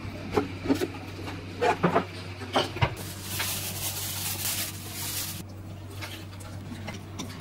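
Several sharp clicks and knocks, then about three seconds in a steady hiss of glutinous rice flour pouring out of a plastic bag into a glass bowl, over a low steady hum.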